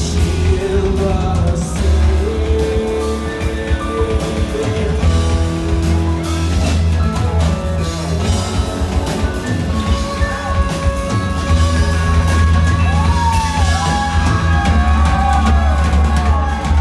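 Rock band playing live: drum kit, guitar and a heavy bass line, with held notes and a line that slides up and down in pitch near the end.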